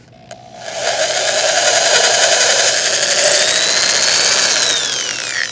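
Power drill with a 1/8-inch bit drilling all the way through a 3/4-inch wooden board. The motor starts about half a second in and runs steadily, and its whine falls as it slows near the end.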